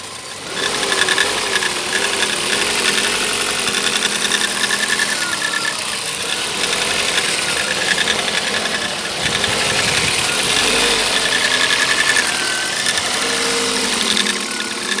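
Geely Emgrand EC7's 1ZZ-FE-replica four-cylinder petrol engine running evenly with a strange knock, a steady ringing rattle that the owner cannot locate exactly and supposes comes from the plastic intake manifold.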